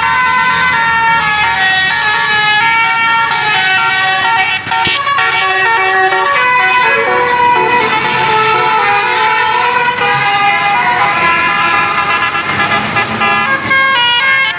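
Basuri telolet musical air horn on a tour bus playing a tune: a continuous run of horn notes stepping up and down in pitch, several tones sounding together.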